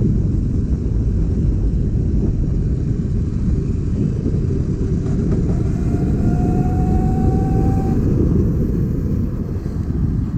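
Vespa scooter on the move: a loud, dense, low rumble of wind and road noise, with a faint thin whine for about two seconds past the middle.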